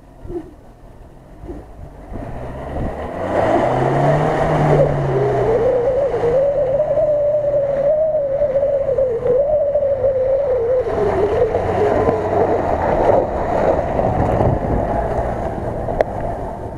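Mitsubishi L200 pickup driving hard through mud close past, its engine revving with the pitch wavering up and down. It grows loud about three seconds in as it approaches, stays loud while it passes, and eases near the end as it pulls away.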